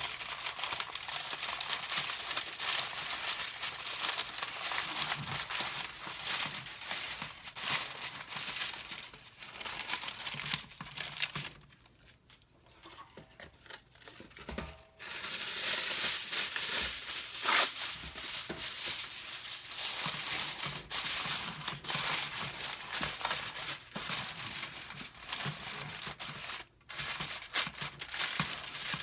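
Kitchen wrap crinkling and crumpling as it is folded and pressed over a pan of marinated chicken. There is a lull of a few seconds about twelve seconds in, then the crinkling comes back louder.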